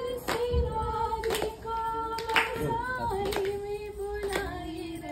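A woman singing a wedding song with no instruments, holding long notes that step down in pitch, while hand claps keep time about once a second.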